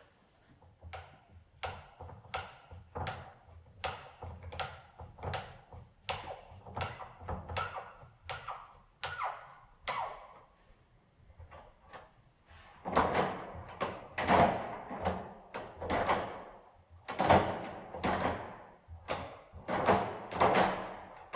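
Metal clicks and clunks from a multipoint mortise door lock being worked by hand: a run of light, evenly spaced clicks, then louder clunks past the middle.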